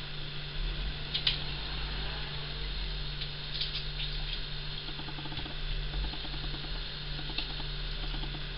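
Water dripping and trickling from a soaked dog cooling coat as it is wrung out by hand over a bowl, with a few small sharp ticks and a fast rhythmic ticking in the second half, over a steady low hum.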